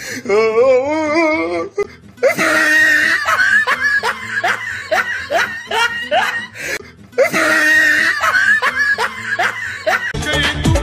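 Laughter in bursts: a warbling laugh at first, then two stretches of rapid, repeated 'ha-ha' laughs that start and stop abruptly. Music with a beat comes in near the end.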